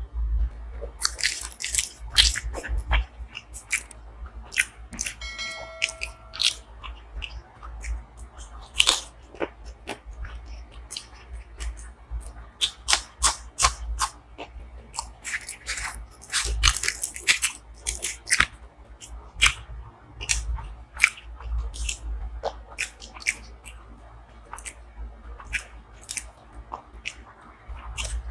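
Close-miked eating: wet chewing, biting and smacking mouth sounds with irregular sharp clicks and occasional crunches, as paratha and butter chicken are eaten by hand. A short pitched tone sounds briefly about five seconds in.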